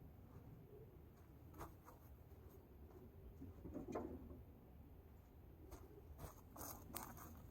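Near silence with a few faint clicks and scratchy rustles, at about a second and a half, about four seconds in, and several more near the end.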